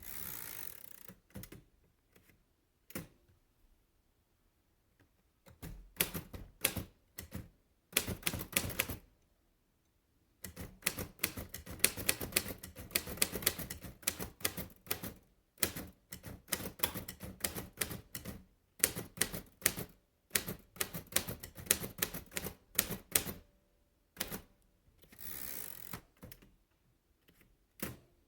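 A circa-1937 Royal De Luxe Model "A" portable typewriter being typed on: runs of sharp key strikes with pauses between them. Three longer scraping noises, each about a second long, break the runs: one at the start, one about eight seconds in and one near the end.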